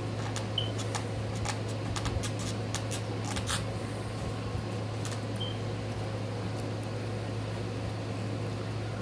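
Steady low hum of a room fan running, with a scatter of faint clicks and rubbing noises in the first few seconds.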